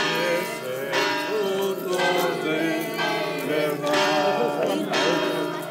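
Church bells pealing, struck about once a second, each stroke leaving a long ringing tone, with singing voices underneath.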